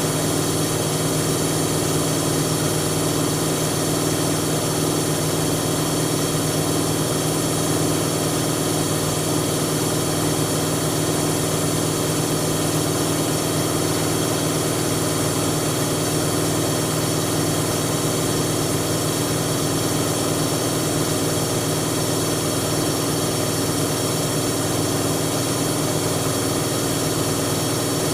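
Siemens Siwamat washing machine running with a steady, unbroken motor hum.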